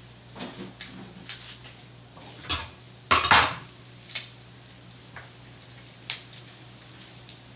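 Irregular clicks, clinks and short scrapes of a metal pot and kitchen utensils being handled during food prep. The loudest is a scraping clatter about three seconds in, and a faint steady low hum runs underneath.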